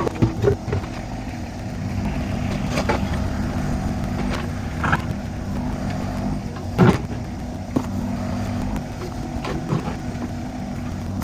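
Kubota U35-4 mini excavator's diesel engine running steadily while it digs, with several sharp knocks and clunks, the loudest about seven seconds in.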